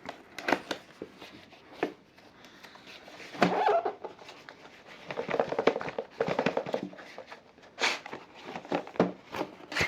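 Cardboard keyboard box being opened by hand: irregular knocks, scrapes and rustles of the flaps and the cardboard packing inside.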